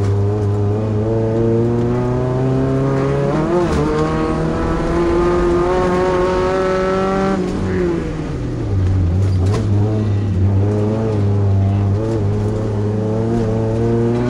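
Class 2 off-road race truck's engine pulling hard under load, the revs climbing and dropping back with each gear change. About halfway through the revs fall away as the throttle is lifted, then build again.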